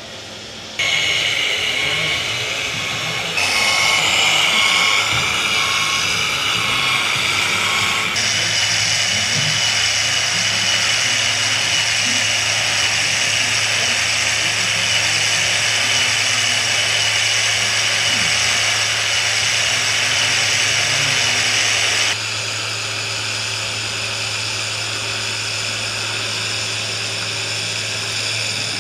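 Whine of small electric motors and gearboxes on radio-controlled model trucks and a model tractor working. It runs steadily, with a short beep repeating about twice a second for the first several seconds.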